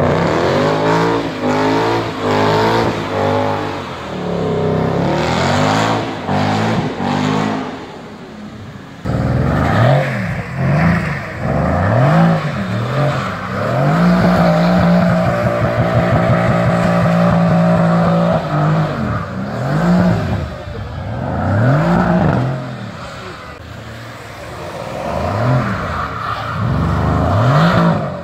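A performance car's engine revved hard in repeated rising-and-falling blips, held at high revs for about four seconds in the middle, as the car spins its wheels on a wet road.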